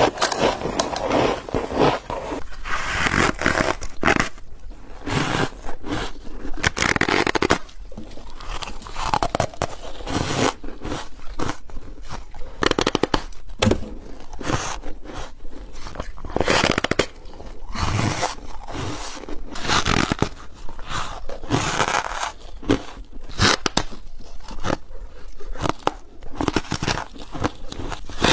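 Close-up biting and chewing of soft, squeaky freezer frost: a steady run of irregular crisp crunches as packed frost is bitten off and crushed between the teeth.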